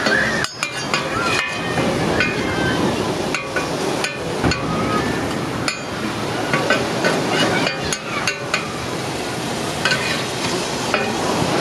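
Cubes of steak sizzling on a hot flat-top griddle, with two metal spatulas clacking and scraping against the steel plate as they turn and chop the meat, in irregular sharp knocks.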